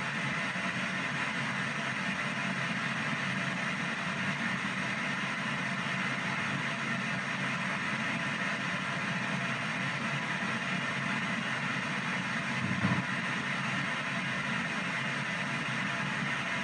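P-SB7 ghost box sweeping radio stations: a steady wash of rushing static and chopped radio noise. There is one short louder blip about three quarters of the way through.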